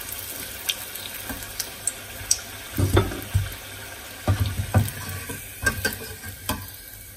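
Hot oil sizzling steadily as batter-coated mung bean balls deep-fry in a steel saucepan, with a metal slotted spoon knocking and clinking against the pan a dozen or so times as the fried balls are lifted out; the loudest knocks come around the middle.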